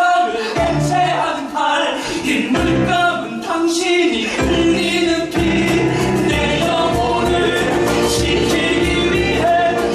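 A stage musical song: several voices singing together over a full instrumental accompaniment with a steady bass.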